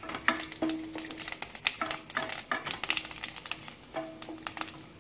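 Wooden spatula stirring whole spices and chana dal in oil in a steel kadhai: irregular clicks, knocks and scrapes, several setting the pan ringing briefly.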